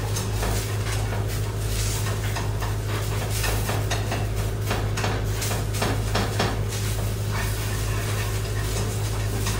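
Spatula scraping and clinking against a frying pan as onions are stirred and fried, with a light sizzle under it. Irregular strokes throughout, over a steady low hum.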